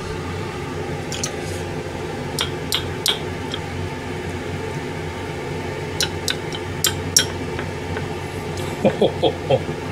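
Scattered light clicks and clinks of a metal spoon and fingers against a ceramic gratin dish as stuffed tomatoes are pressed into meat sauce, over a steady low hum.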